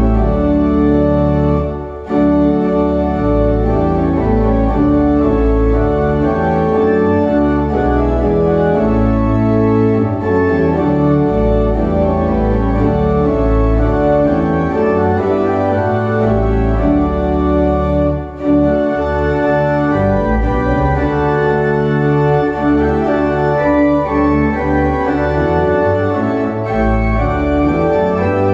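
Church organ playing a hymn in full, sustained chords on the manuals, with a pedal bass line underneath. Two brief breaks between phrases come about 2 seconds and 18 seconds in.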